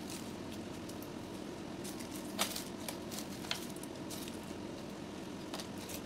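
Handling noise from a flexible gooseneck phone holder being bent and turned in the hands: scattered light clicks and taps, the sharpest about two and a half seconds in and another a second later, over a steady low background hum.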